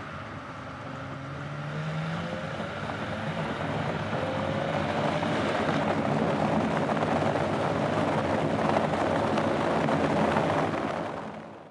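Mercedes-Benz C230 (W203) 2.5-litre naturally aspirated V6 accelerating, its note rising in pitch over the first few seconds and getting louder, then holding high before fading out near the end.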